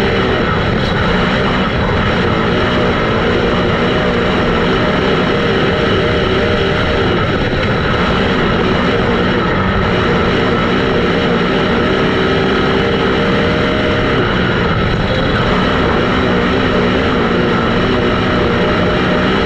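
Dirt late model race car engines running hard on the track, several engine notes overlapping and wavering in pitch as the cars go around.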